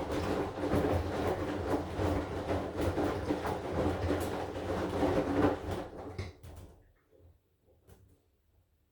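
AQUA AQW-DX12M front-loading drum washing machine turning its drum in the wash phase: a dense churning noise full of small knocks from the tumbling laundry. About six and a half seconds in the drum stops, and only a few faint clicks remain.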